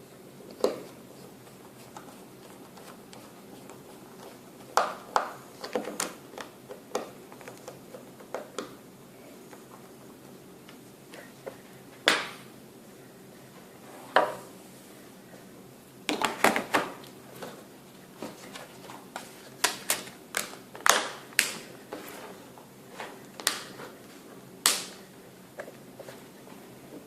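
Irregular sharp clicks and taps of small tools and phone parts being handled during smartphone reassembly, some in quick runs of several clicks.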